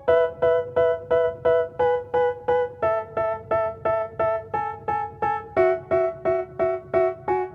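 Background music: a keyboard playing short, evenly repeated chords, about three a second, with the chord stepping down about three seconds in and again near the end.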